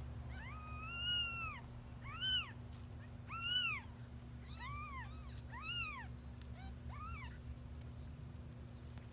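One-week-old kittens mewing: a series of about eight high, thin mews that each rise and fall in pitch, the first one long and drawn out, the rest short, stopping a couple of seconds before the end.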